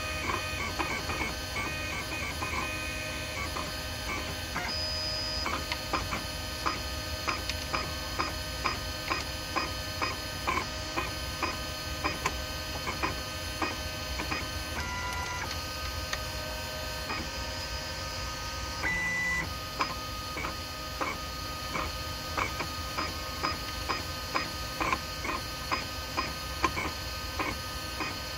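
Home-built 3D printer printing its first layer: the stepper motors sing out a quick run of short pitched whines, two or three a second, over a steady background hum. A couple of longer held tones partway through mark longer moves of the print head.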